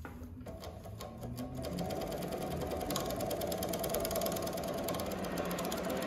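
JUKI MS-1190 double-needle chain stitch industrial sewing machine starting up about half a second in and speeding up to a steady, fast stitching run as it sews tape onto fabric.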